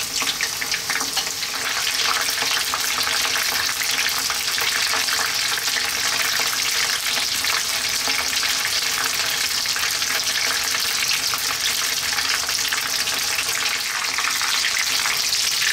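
Egg-and-cornflour-battered fish pieces deep-frying in hot sunflower oil in a wok: a steady, dense sizzle and crackle of bubbling oil.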